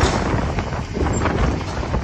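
Wind buffeting the microphone over the steady running of baling machinery: a Bale Baron bale bundler towed behind a baler, with irregular knocks from its working parts.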